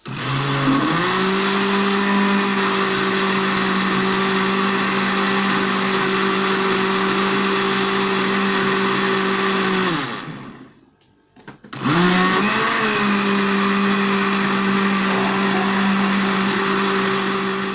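Electric mixer whipping a crème chantilly mixture: a steady motor whir that rises to speed, runs about ten seconds, stops briefly, then starts again.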